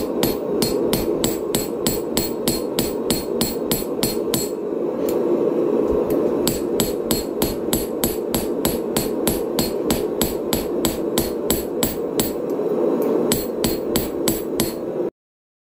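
Hand hammer striking a red-hot steel dagger blade on a chain-wrapped steel-block anvil, forging it in a steady run of about three blows a second. A steady low noise runs underneath.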